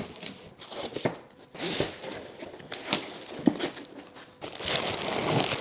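A cardboard shipping box being opened and unpacked: cardboard flaps rustling and scraping and a foam packing insert lifted out, with plastic wrap crinkling. Irregular rustles and small knocks, with a denser rustle near the end.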